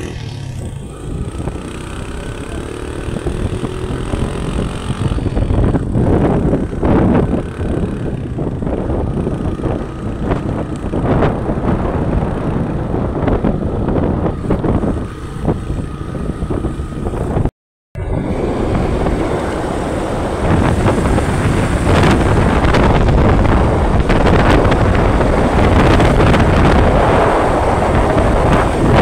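Motorcycle riding along a road, its engine running under a heavy rush of wind buffeting the microphone. The sound cuts out for a moment a little past halfway.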